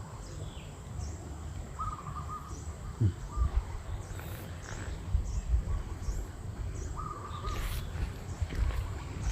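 Birds calling: a short warbling call repeated a few times, and thin high chirps that drop in pitch, coming every half second or so. A steady low rumble runs underneath.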